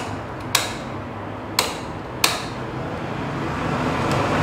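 Three sharp clicks in about two seconds from the ignition and starter switches of a BMW R1200GS Adventure with a completely dead battery; the engine does not crank.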